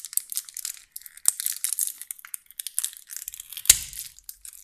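Plastic wrap being torn and peeled off a pack of AA batteries, crinkling and crackling. There is a sharp click about a second in and a louder knock near the end.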